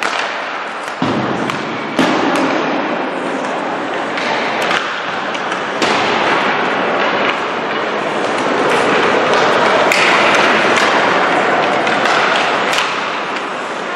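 Hockey pucks and sticks cracking and thudding at irregular moments during a team warm-up in an ice rink, the hits ringing in the hall. A steady wash of skates scraping the ice runs underneath.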